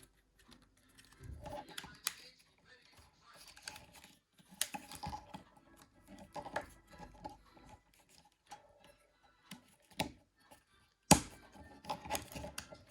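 Small plastic parts of a Nokia 9300i communicator being handled and pressed into place: scattered light clicks and taps, with one sharp snap about eleven seconds in.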